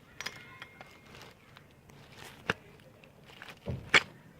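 Scattered small metal clicks and knocks of steel nuts and tools being handled and fitted on a motorcycle rear shock's threaded shaft. There is a sharp click about halfway through and the loudest knocks near the end.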